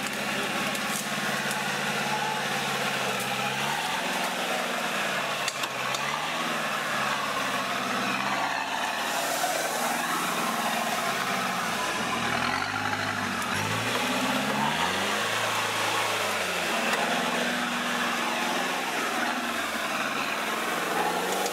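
Engine of a four-wheel-drive pickup truck revving up and falling back again and again as it crawls through deep mud, over a steady noisy churn.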